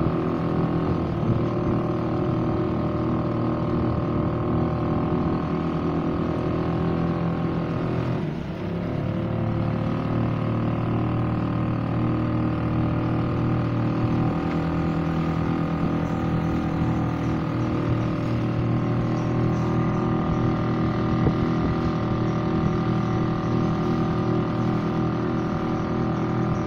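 Small fishing boat's motor running steadily under way. About eight seconds in, its note dips briefly, then picks back up.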